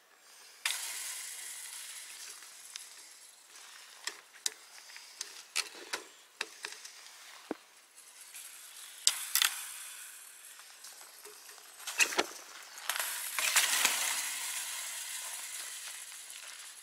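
Rustling and scraping of clothes, rucksack and grass as a hiker climbs over a post-and-wire fence, with scattered sharp clicks and knocks from the trekking pole and fence.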